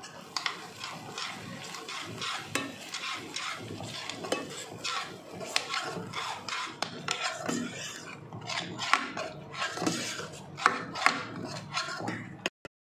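Metal spoon stirring and scraping thick spinach gravy in a steel pan, with irregular clinks of the spoon against the pan. Two louder clinks come near the end.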